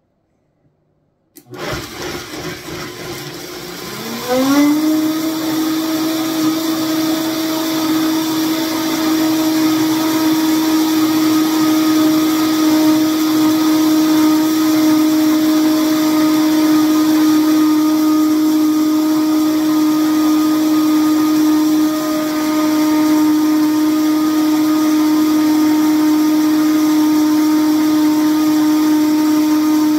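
Vitamix blender motor starting about a second and a half in, its whine rising in pitch a few seconds later as it speeds up, then running at a steady high pitch while blending cashews and salsa into a thick sauce.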